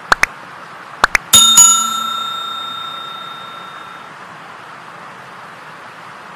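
Subscribe-button animation sound effect: two pairs of quick rising blips, then two clicks and a notification-bell ding that rings out and fades over about two and a half seconds. A steady hiss runs underneath.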